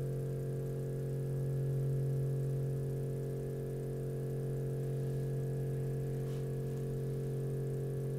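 Mechanical wave driver buzzing steadily as a frequency generator drives it at about 45 Hz, shaking a stretched string held in a standing wave.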